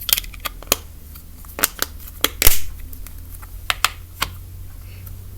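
Old slime that has gone stiff being squeezed and stretched by hand, giving a dozen or so irregular sharp clicks and pops. The loudest pop comes about halfway through.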